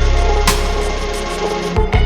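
Background music with a steady bass pulse and a percussion hit about half a second in.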